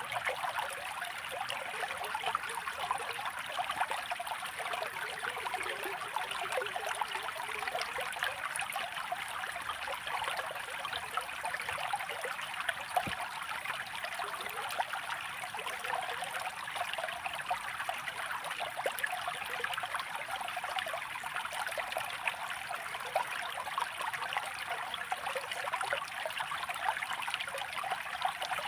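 Running water trickling and babbling steadily, light and even with no deep rumble.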